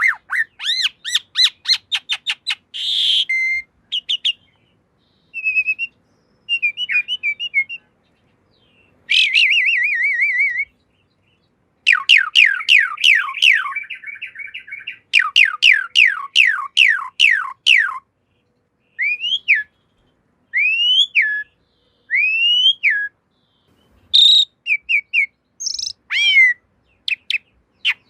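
Asian pied starling (jalak suren) singing: phrases of clear whistles, runs of quick downward-sweeping notes and chatter, each phrase broken off by a short silence.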